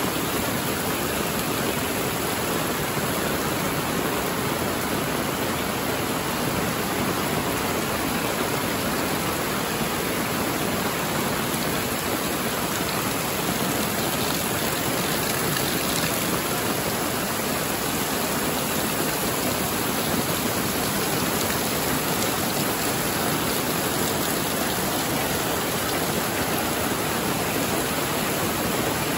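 Heavy rain falling steadily, an even hiss with no break or change.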